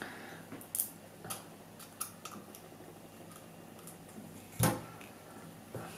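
Light metallic clicks and scrapes as the torn-open casing and foil of a fake-capacity cylindrical lithium cell are picked apart by hand, with one louder knock a little over halfway through.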